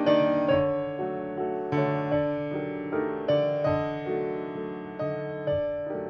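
Piano music: soft notes and chords struck about twice a second, each ringing and fading before the next.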